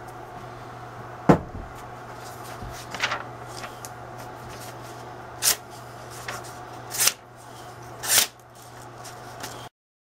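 A sharp knock, then a handmade knife slicing through a held sheet of paper about four times, each cut a short crisp rasp, over a steady low shop hum.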